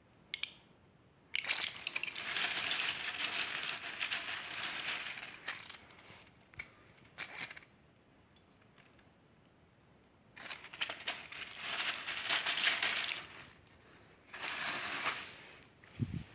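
Foil-backed tablet blister packs crinkling and crackling in three bouts, about a second in, around ten seconds in and near the end, as tablets are pressed out through the foil.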